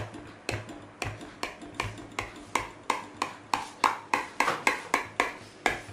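Kitchen knife sawing down through a baked tajine in a glass baking dish, its edge clicking against the glass with each stroke: a run of short, ringing clicks, about three a second, quickening as the cut goes on.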